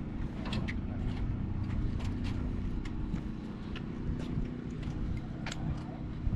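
Steady low hum of an engine or machine running, with scattered light clicks and knocks over it.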